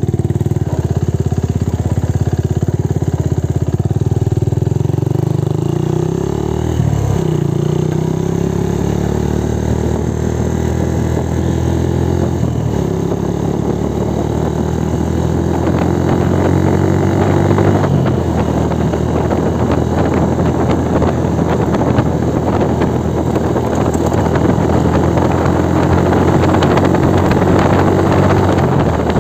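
Small motorcycle engine pulling away and accelerating, its pitch climbing and then dropping at each of three gear changes. Wind rush on the microphone grows as road speed builds in the second half.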